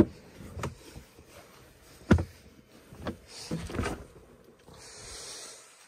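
Handling thumps and knocks on the wooden load floor in the back of a Land Rover Defender as a floor rug is pulled up and moved, the loudest about two seconds in, followed by a short hissing rustle near the end.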